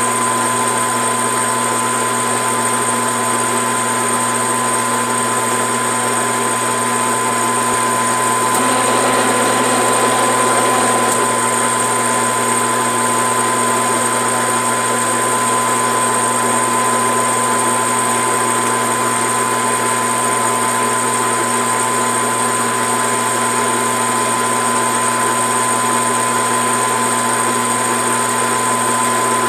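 Grizzly G4003G metal lathe running steadily, geared for cutting 28 threads per inch, with a constant hum and a high whine from its motor and gear train. The level rises slightly for a couple of seconds about nine seconds in.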